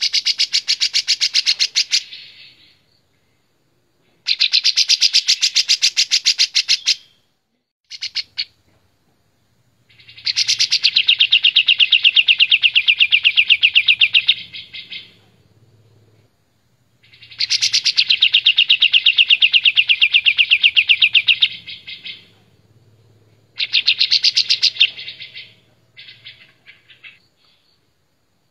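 Olive-winged bulbul (kapas tembak) singing loudly in repeated bursts of rapid trilled notes, each lasting from under a second to about five seconds, with short pauses between them.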